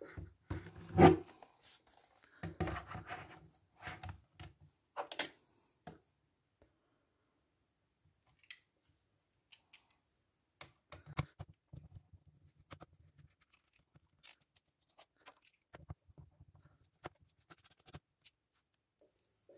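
Clicks, scrapes and knocks of a plastic laptop casing being handled and worked apart with small hand tools. The sound is busiest and loudest at first, with one sharp knock about a second in, then thins to scattered light clicks.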